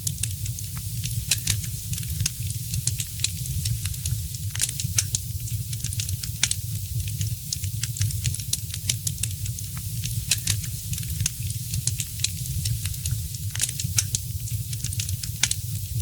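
Wood fire crackling in a fireplace, with frequent irregular snaps and pops over a steady low rumble.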